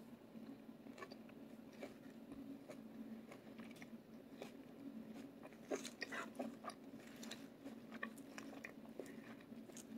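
Faint crunching and clicking of a metal fork tossing mixed salad greens in a plastic takeout tray, mixed with chewing. A few louder clicks come a little past halfway, over a faint steady hum.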